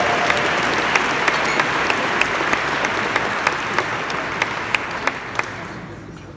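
Banquet audience applauding after a line in a speech, with one pair of hands clapping close by, about three claps a second. The applause fades steadily and dies away near the end.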